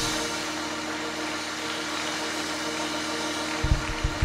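A church organ holds one sustained chord over a steady wash of congregational applause and praise. About three and a half seconds in, bass drum hits from the drum kit start coming in.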